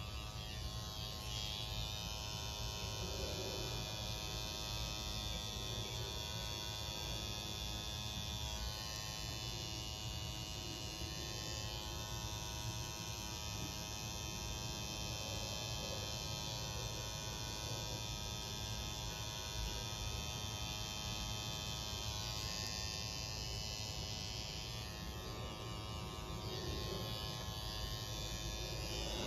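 Tattoo machine buzzing steadily while needling ink into skin, a constant electric buzz that shifts slightly in tone a couple of times.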